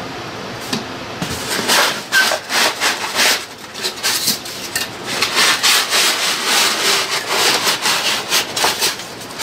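Cardboard rubbing and scraping as a kit packed in cardboard inserts is slid out of its cardboard box, in a run of uneven scraping strokes starting about a second in.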